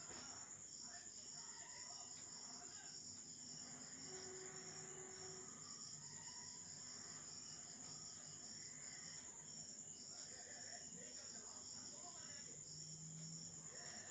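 Faint chirping of crickets or similar insects: a steady high trill with a lower, pulsing chirp under it.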